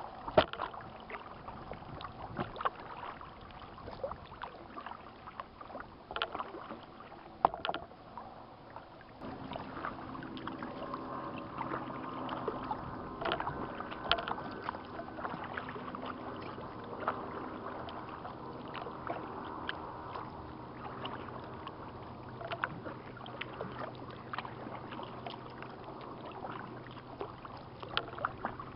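Kayak paddling: the paddle dips and splashes, with sharp knocks from the paddle or gear against the hull. About a third of the way in, a steady hum with several pitches joins and carries on.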